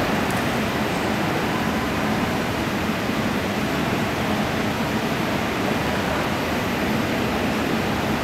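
Steady, even rush of indoor arena background noise, such as ventilation and the hubbub of the hall, with no distinct events standing out.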